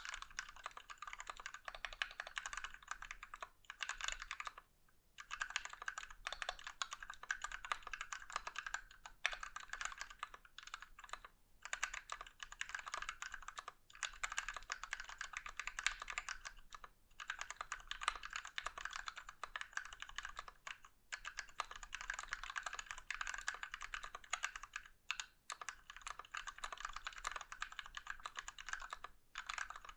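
Fast continuous typing on a mechanical keyboard with lubed Gateron Ink Black linear switches in a brass plate and XDA Canvas keycaps, a dense run of key clacks broken by brief pauses every few seconds.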